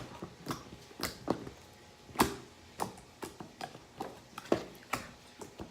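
Slime being squeezed and played with by hand, making irregular sharp clicks and pops, about one or two a second, with the loudest pops about two seconds in and near four and a half seconds in.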